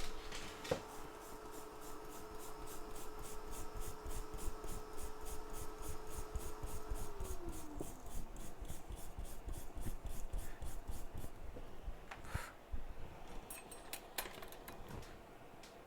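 A small brush scrubbed quickly back and forth on a circuit board, a scratchy rubbing at about four strokes a second that stops about eleven seconds in. A faint steady hum drops in pitch about seven seconds in, and a few light clicks follow near the end.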